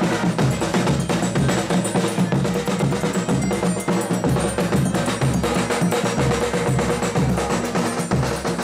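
Folia de Reis band playing a chula: accordion held notes over a steady beat of drums and rhythmic percussion.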